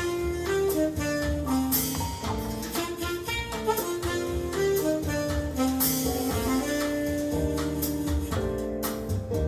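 Jazz with a saxophone melody over a drum kit, played back through a home hi-fi amplifier and speakers with no subwoofer connected; the owner finds the bass thin.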